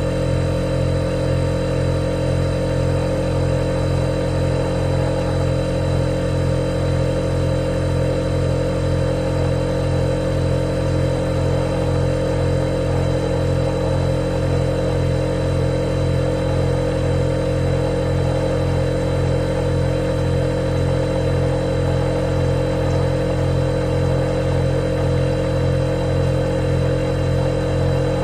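Refrigerator compressor running with a steady, unchanging low hum and a faint high whine over a light hiss.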